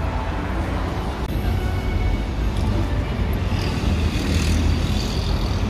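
Steady city street ambience: a low traffic rumble with faint voices of passers-by.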